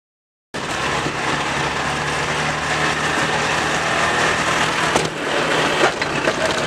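Peugeot 306's 1.4 engine running at steady revs, heard from inside the cabin under loud road and wind noise. A couple of sharp knocks come about five and six seconds in. The engine is being run to destruction.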